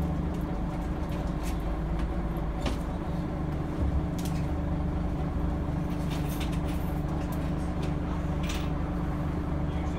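Scania DC9 five-cylinder diesel of a Scania N94UD double-decker bus idling steadily, heard from inside the lower deck. Scattered light clicks and a low thump about four seconds in.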